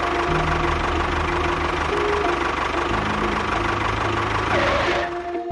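A small engine running steadily with a knocking, rattling note.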